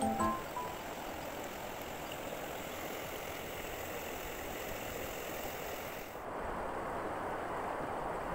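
Steady rushing noise of a flowing river at the water's edge. About six seconds in, the noise turns duller and fuller as the shot changes.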